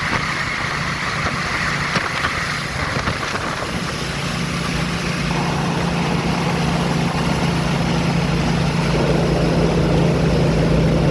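A vehicle's engine running under way as it is driven through the gears, buried in heavy wind noise on the microphone. A steady low engine note strengthens about four seconds in and then holds, growing slightly louder.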